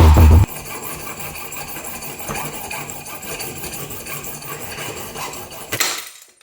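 A tool cutting into a brass Chubb euro lock cylinder to gut it: a steady rasping grind of metal being cut, ending with a short louder burst before it stops. Bass-heavy electronic music cuts off about half a second in.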